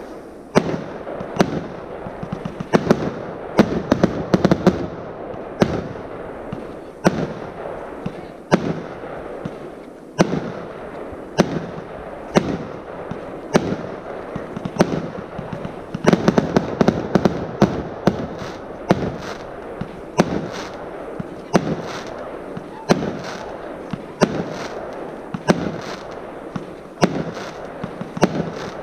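A 100-shot, 25 mm consumer fireworks cake firing in a long, regular sequence. Each shot is a sharp bang, coming about one to two a second, with a continuous noisy bed between them.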